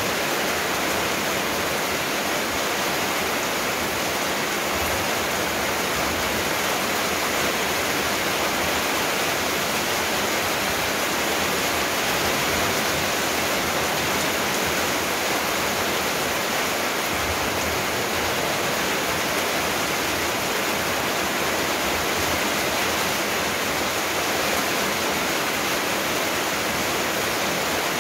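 Steady rushing noise, even and unbroken throughout, like running water.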